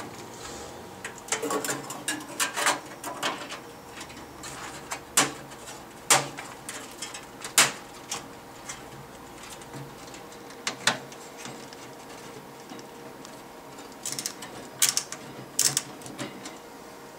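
Scattered clicks and knocks of computer parts being handled and fitted during a PC build, in small clusters with pauses between.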